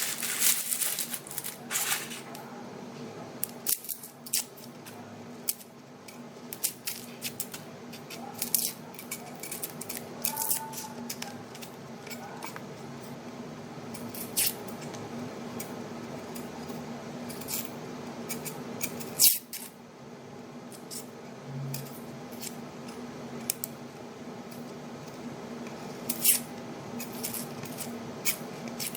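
An onion being peeled and cut by hand with a knife: crisp crackles and snaps of the dry skin and flesh at irregular intervals, over a low steady hum.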